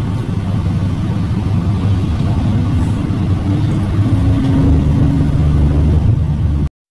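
Car engine running, heard from inside the cabin as a steady low rumble that rises slightly in pitch and level about four seconds in. It cuts off suddenly near the end.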